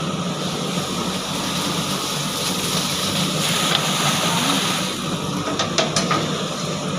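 Diesel engine of a JCB 3DX backhoe loader running steadily, with a few sharp knocks near the end.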